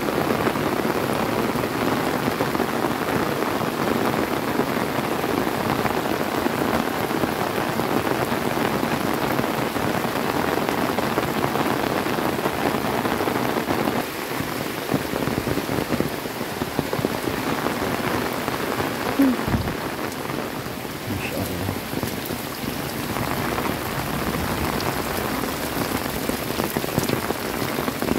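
Heavy rain pouring steadily, a dense even hiss that eases a little about halfway through, with a few sharper drop hits near the end.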